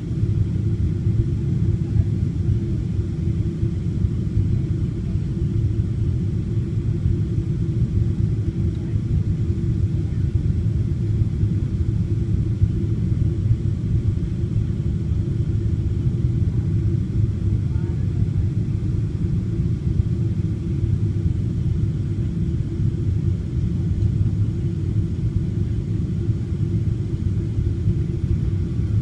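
Airliner cabin noise on the final approach to landing: a steady low rumble of the engines and airflow, heard from a window seat inside the cabin.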